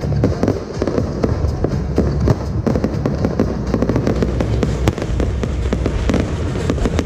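Fireworks going off in rapid succession: many sharp cracks and bangs over a continuous low rumble.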